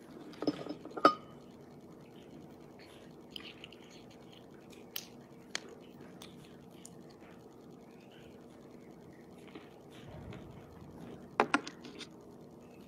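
Quiet room with a faint steady hum, broken by small clicks and rustles of things being handled at a table: a few sharp taps about a second in and a sharper pair near the end.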